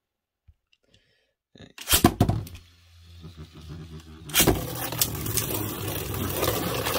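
A few sharp plastic clicks around two seconds in, then about four and a half seconds in Beyblade Burst tops are launched into a plastic stadium: a sharp clack as they land, followed by the steady whirring and scraping of two tops spinning on the stadium floor.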